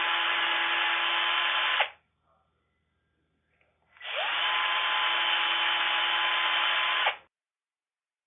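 Electric drill running at steady full speed in two runs of about three seconds each, pre-drilling pilot holes through the mounting holes of a folding door lock's jamb casing. The motor whine drops as the first run stops about two seconds in, and the second run spins up about four seconds in and winds down near the end.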